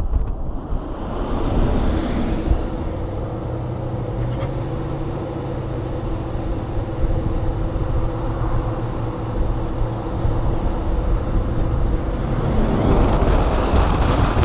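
Tyre and wind rush picked up by a camera mounted on the outside of an electric Tesla Model S at highway speed, with a steady low drone underneath. The rush swells louder near the end.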